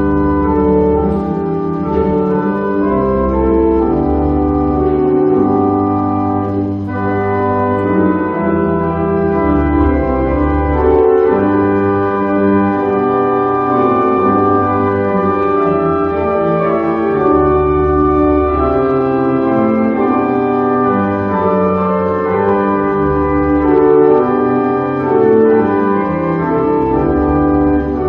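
Organ music playing sustained chords over slow, deep bass notes that change every second or two.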